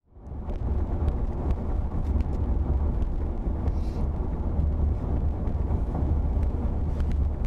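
Steady low road and engine rumble inside a moving car's cabin, fading in over the first half second.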